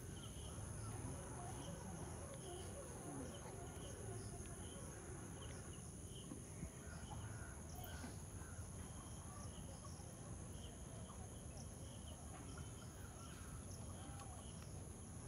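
Outdoor rural ambience: a steady, high-pitched drone of insects, with repeated bird chirps and calls over it.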